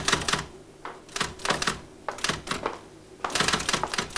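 Typewriter being typed on: runs of sharp key strikes in quick succession, broken by short pauses about once a second.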